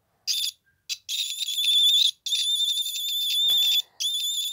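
Fire alarm sounder set off from an ИПР 513-10 manual call point, giving a high, shrill, slightly wavering tone. It chirps twice briefly, then sounds continuously with two short breaks.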